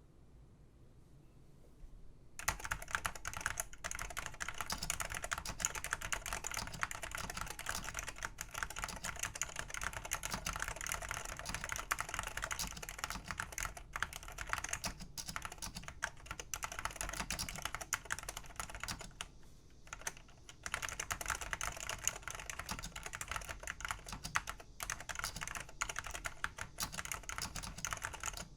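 Typing on a 1989 OPC ASCII terminal keyboard with Alps SKCL yellow switches and double-shot keycaps: a dense, continuous run of key clacks starting about two seconds in, with a brief pause about two-thirds of the way through.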